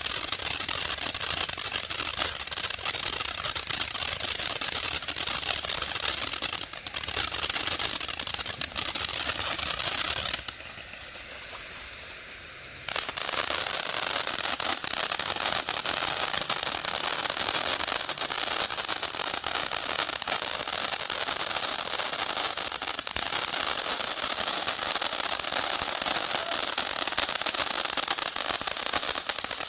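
Fireworks crackling and popping in a dense, continuous stream of rapid small reports. About ten seconds in it drops away for a couple of seconds, then resumes just as dense.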